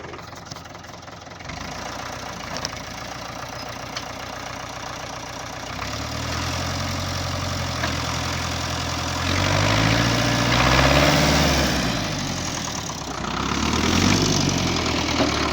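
A work machine's engine idles, then is revved up about six seconds in. It climbs harder and loudest around ten seconds, drops back, and revs again near the end.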